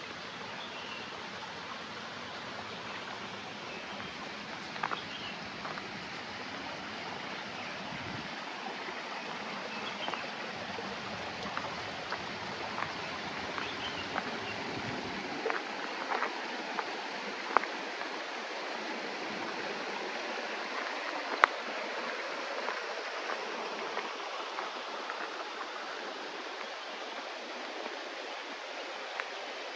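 Steady rush of running water, with scattered small clicks and taps over it and a couple of sharper clicks past the middle.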